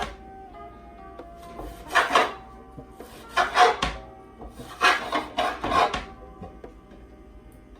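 A kitchen knife chopping and scraping vegetables on a cutting board, in three short bursts of quick rasping strokes, over background music.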